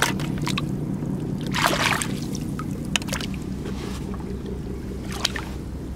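Rubber boots and hands sloshing and splashing in shallow seawater while wading and groping for razor clams. The loudest splash comes a little under two seconds in, with a few small clicks and drips, over a steady low drone.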